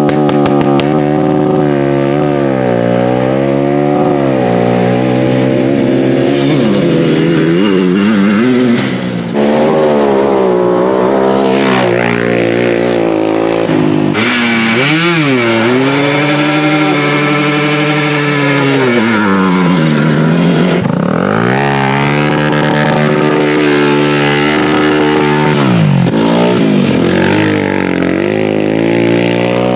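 Single-cylinder quad (ATV) engine revving hard under riding, its pitch climbing and dropping again and again as the throttle is worked. The level dips briefly about nine seconds in.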